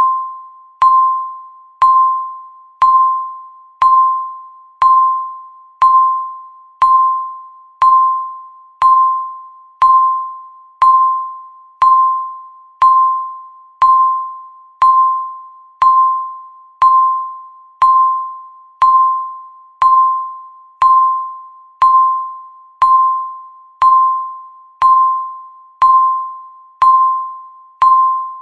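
Countdown timer's tick sound: a short electronic ping with a click at its start, repeated once a second, each one fading away quickly.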